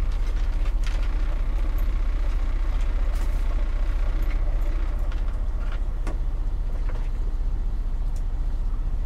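Steady low rumble of the parked semi truck's engine idling, heard from inside the sleeper cab. A few light clicks and taps of things being handled sound over it.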